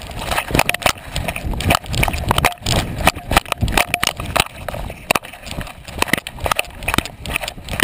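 Irregular knocks, rattles and rubbing from a GoPro Hero2 in its housing strapped to a moving boxer puppy's back, the camera jolting with the dog's movements.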